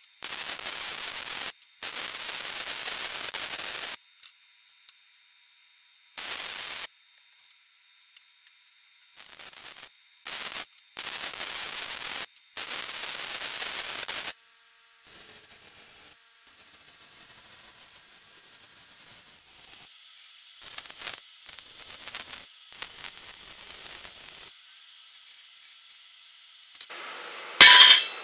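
MIG welding arc crackling and hissing in separate welds of one to three seconds each, stopping and starting, then a fainter hiss with scattered crackles. A short loud clatter comes near the end.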